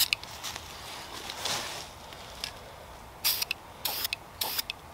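Aerosol spray-paint can giving three short bursts of spray between about three and four and a half seconds in, with a brief hiss just at the start.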